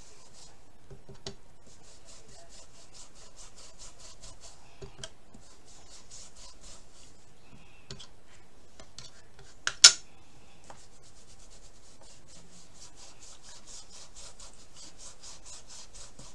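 Small ink-blending tool scrubbed over a plastic stencil on card in quick, short strokes, several a second, giving a dry rasping rub that stops and starts in bursts. One sharp click about ten seconds in.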